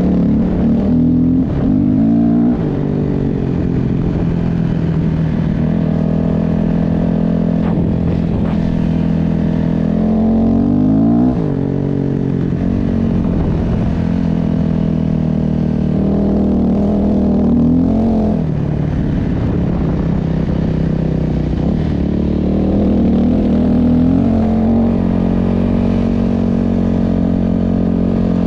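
A motor vehicle's engine running, its pitch climbing and then dropping back several times, about every six to eight seconds.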